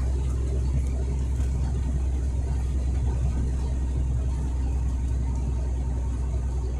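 Truck on the move: a steady low rumble of engine and road noise, unchanging throughout.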